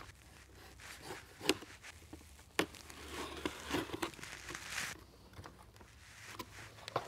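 A Leatherman multitool blade slitting the packing tape on a cardboard shipping box: a few sharp taps and a stretch of tearing and crinkling, then the cardboard flaps being pulled open.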